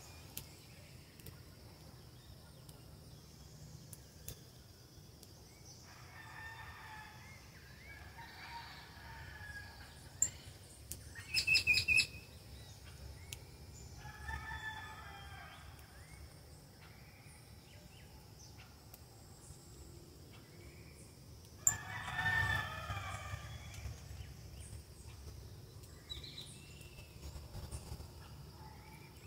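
A rooster crowing a few times, the loudest crow about two-thirds of the way through, with a short, loud, high bird call just before the middle.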